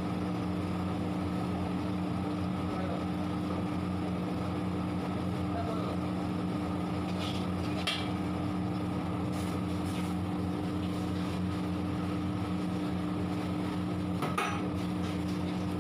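Onions frying in oil in a large steel kadhai under a steady hum. A metal ladle clinks against the pan a couple of times, once about halfway and once near the end.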